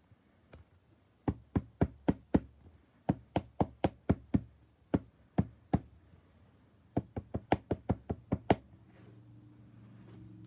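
Football trading cards flipped through one at a time by hand, each card snapping against the stack with a sharp click, in four quick runs of clicks with short pauses between. A faint low hum comes in near the end.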